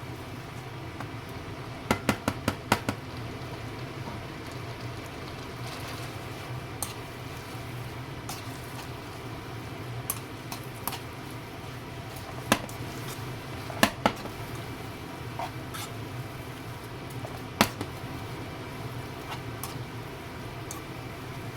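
Cooking utensils clinking and knocking against pots and pans over a steady low hum: a quick run of about five clinks about two seconds in, then single knocks every few seconds.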